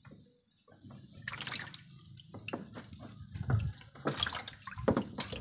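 Water splashing and dripping irregularly in a shallow plastic fish tank that is being drained through a hose.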